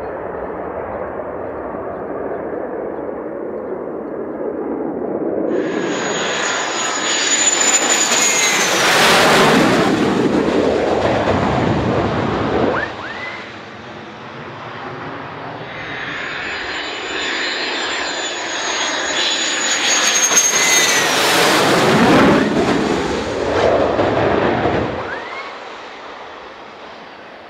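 F-16 fighter jets making two low passes. Each pass is a high-pitched turbine whistle that comes in suddenly and builds to a loud jet roar, then falls in pitch as the jet goes by. The first pass peaks about ten seconds in and the second about twenty-two seconds in, and the sound fades near the end.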